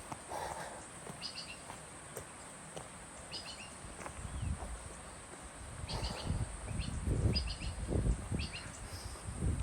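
A bird repeating a short cluster of high chirps every second or two over a steady, high insect hum. From about four seconds in, irregular low thumps of footsteps on the trail become the loudest sound.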